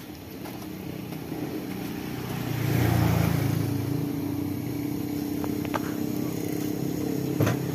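A vehicle engine running close by, growing louder about two and a half seconds in and then holding a steady hum, with a few light clicks near the end.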